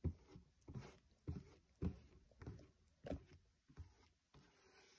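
Faint, irregular strokes of a paintbrush spreading thick white acrylic paint over a cardboard cereal box, about one or two strokes a second.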